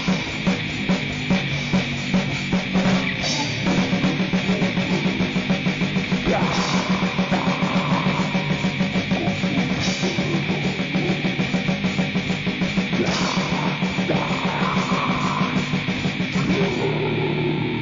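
Grindcore noise music: harsh distorted guitar and bass over a fast, evenly pulsing drum beat.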